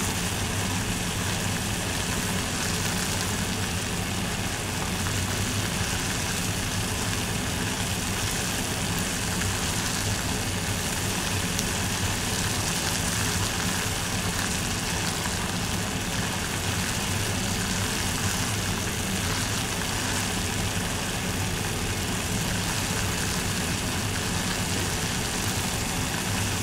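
Water boiling in a pot: a steady bubbling hiss over a low rumble.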